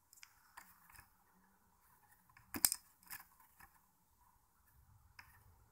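Balisong (butterfly knife) being handled: a series of light metallic clicks from the handles and latch, the loudest about two and a half seconds in.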